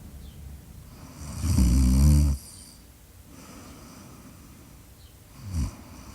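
A sleeping person snoring: one long, loud snore about a second in, then a second, shorter snore near the end.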